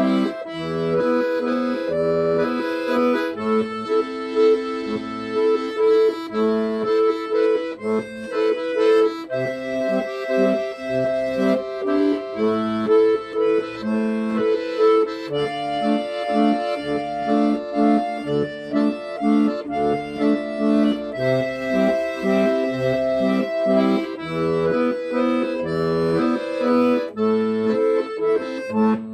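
Accordion music: a melody over held chords, with bass notes pulsing in a steady beat.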